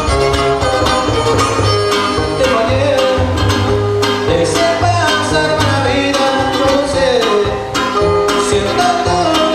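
Live son huasteco (huapango) trio music: a man sings over a bowed violin melody, with guitars strummed in a steady rhythm and a bass line underneath.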